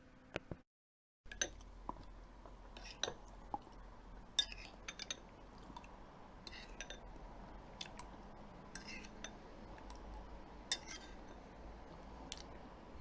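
Cutlery clinking against dishes: short, scattered clicks and clinks, irregularly spaced, over a faint steady low hum.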